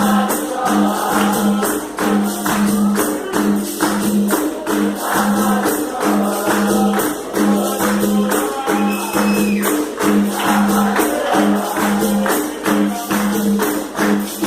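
Capoeira music: singing over a pandeiro's jingling and a low note struck again and again in a steady rhythm.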